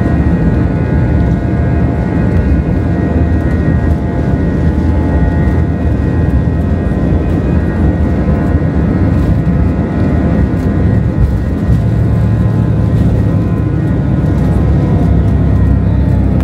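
Airbus A321's jet engines heard from inside the cabin: a steady whine of several tones over a loud low rumble, the rumble growing stronger a little past halfway.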